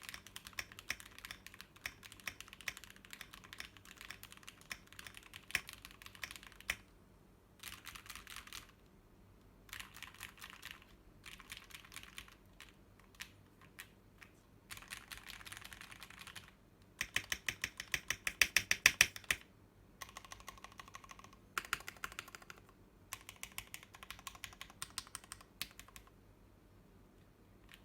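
Typing on a Blade60 60% mechanical keyboard with lubed Gateron Yellow KS-3 linear switches, PBT keycaps, an aluminium plate and a two-layer tape mod. Keystrokes come in bursts separated by short pauses, with a faster, louder run of keystrokes a little past halfway.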